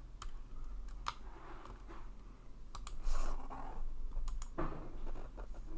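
Scattered sharp clicks from a computer mouse and keyboard being worked, some coming in quick pairs, with a brief soft rush of noise about three seconds in.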